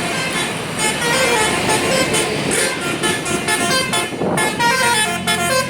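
Bus 'telolet' musical horn of the Basuri type, a set of electric air-horn trumpets playing a quick tune of short notes that change pitch several times a second, over the bus's engine and road noise as it passes.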